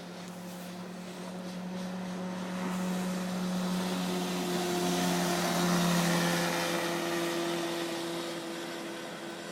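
Boat's 50 hp Mercury outboard motor running steadily as it passes by, getting louder as it approaches, loudest about six seconds in, then fading as it moves away.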